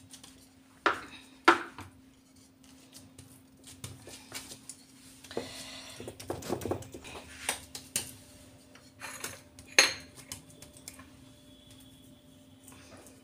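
A spatula clinking and scraping against a stainless-steel plate as coconut burfi mixture is spread and pressed flat. There are sharp clinks about a second in and again near ten seconds, and a stretch of scraping in the middle, over a faint steady hum.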